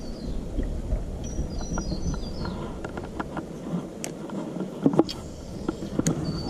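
Handling noise from a fishing rod and reel being worked during a retrieve: a low rumble at first, then scattered sharp clicks and knocks. A small bird chirps a quick run of falling high notes about a second in.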